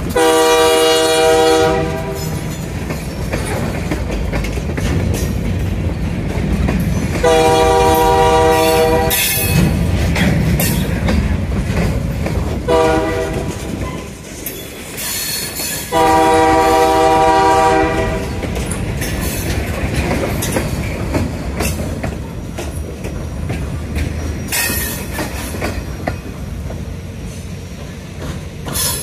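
Finger Lakes Railway freight locomotive's air horn blowing long, long, short, long, the grade-crossing signal, over the rumble and wheel clatter of covered hopper cars rolling past.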